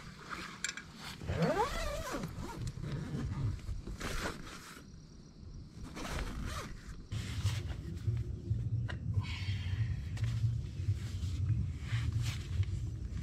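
Tent door zipper being drawn, with the nylon fabric of the tent rustling and scraping. From about seven seconds in a steady low rumble sits underneath.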